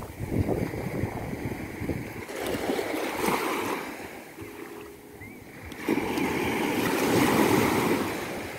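Sea waves breaking and washing up on a beach, easing off about halfway through and then surging loud again about six seconds in.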